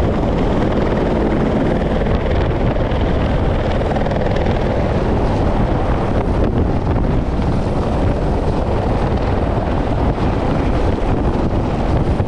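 Helicopter hovering low overhead with a long line hanging from it: steady rotor and turbine noise.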